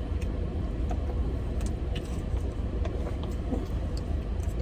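Steady low rumble of a car idling with the air conditioning running, heard inside the cabin, with a few small clicks and taps from eating.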